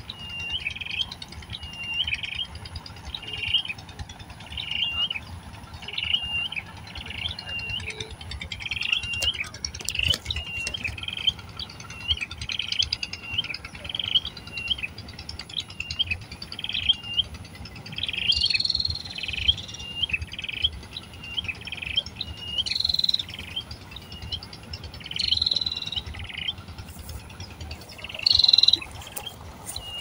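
Coucal nestlings begging: a steady run of short, high chirps, a little more than one a second. From about halfway through, louder, harsher calls break in several times as the adult feeds them.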